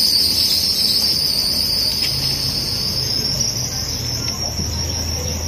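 Steady, high-pitched insect chorus, with a faint low hum underneath.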